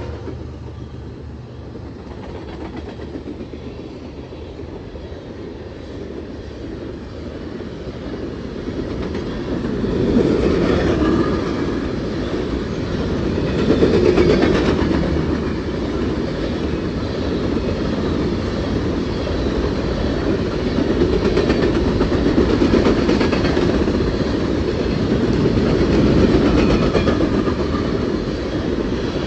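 Empty coal train cars rolling past at track speed, with steady wheel noise and clacking over the rails. It grows louder about ten seconds in and swells and eases repeatedly.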